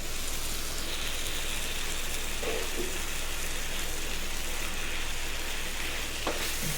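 Chopped cabbage, tomato and onion sizzling steadily in hot oil in a pan, the sizzle growing brighter about a second in, with a light tap near the end.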